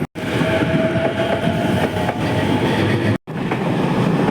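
Ome Line train running past on the rails, a steady loud rumble of wheels on track with a faint whine in the first half. The sound cuts out completely for an instant at the start and again about three seconds in.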